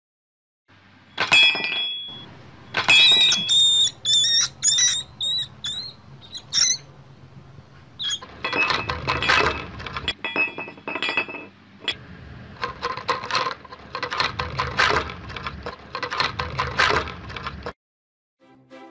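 A house mouse squeaking in a run of short, high chirps. Then for about ten seconds it scrabbles and clatters against a homemade wood-and-plastic trap, the sound coming in dense, irregular clicks and rattles until it cuts off suddenly.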